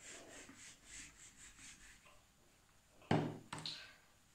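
Whiteboard eraser wiped quickly back and forth across the board, a dry rubbing at about five strokes a second, for about two seconds. About three seconds in come two brief, louder sounds.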